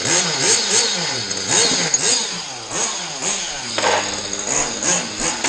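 Kyosho FW-05 nitro RC car's small glow engine running and being revved up and down over and over, about two quick blips a second, with one higher rev a little before four seconds in. The engine is only partly dialed in and is being kept a little rich.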